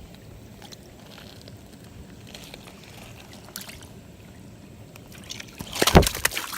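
Low steady outdoor noise, then near the end a loud burst of water splashing and sloshing as a caught carp is put back into the river.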